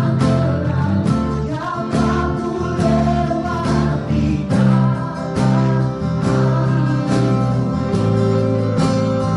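Christian worship song: singing over strummed guitar and a band, with a steady beat of about two strokes a second.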